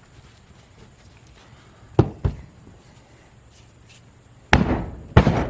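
Knocks and clatter from hands-on work on a broken plastic lawn sweeper wheel: two quick sharp taps about two seconds in, then heavier, longer impacts near the end.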